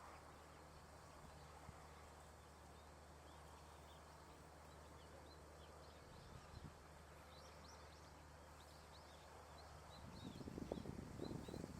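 Near silence with faint, high chirps of small birds, thickening over the last few seconds. Soft low rumbling thumps come in near the end.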